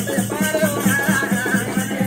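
Oggu katha folk music: a fast, even drum beat, about six or seven strokes a second, with rattling jingles and a wavering melody line above it.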